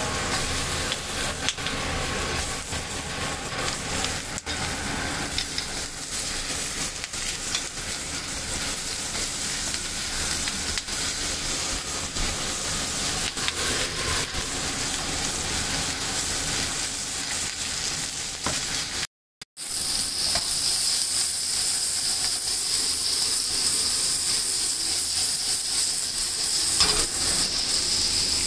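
Sliced onions frying in a hot stainless steel skillet, a steady sizzle. After a short break about two-thirds through, the sizzle is louder and hissier.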